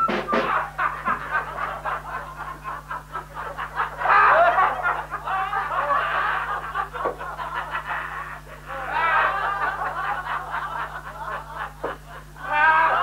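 Several people laughing and chuckling in waves, swelling about four seconds in, again a little past the middle, and near the end.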